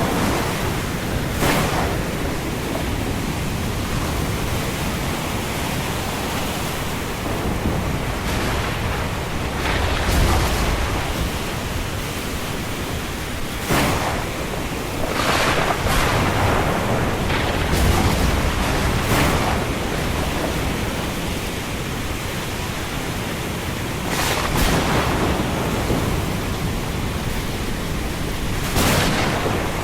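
Thunderstorm and windstorm: a steady rush of wind and rain, with low thunder rumbles swelling about ten and eighteen seconds in and short bursts of gusting every few seconds.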